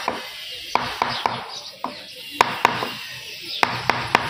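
A series of irregular sharp knocks and taps, about nine over four seconds, with rustling handling noise between them, like hard parts or tools being knocked about on a workbench.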